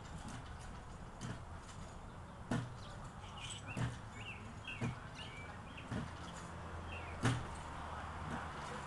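Trampoline mat taking a person's landings: a dull thump about every second and a quarter as he bounces, six in all, the loudest near the end. Birds chirp in the background.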